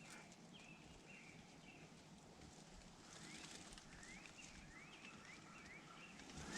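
Faint songbird calls in the woods: a few short whistled notes early on, then a series of quick rising chirps in the second half.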